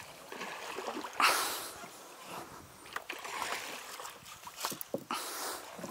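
A splash of water about a second in, then a few short knocks and taps from the wooden dugout canoe.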